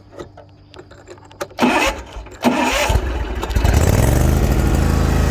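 Hustler Raptor zero-turn mower's 23 horsepower Kawasaki V-twin engine starting: it cranks on the starter for about a second and a half, catches about three seconds in, and settles into a steady run.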